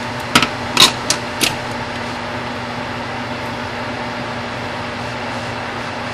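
A steady mechanical hum with a faint low tone, broken by four sharp clicks within the first second and a half.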